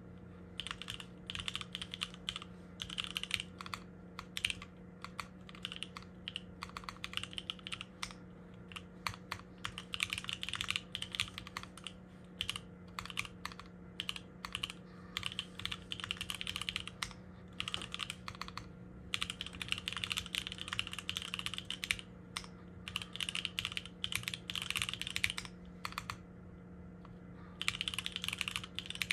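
Typing on the Augur by JLabs, a 60% custom mechanical keyboard with lubed NovelKeys x Kailh Cream linear switches on an FR4 plate. Runs of quick keystroke clacks are broken by a few short pauses, over a faint steady hum.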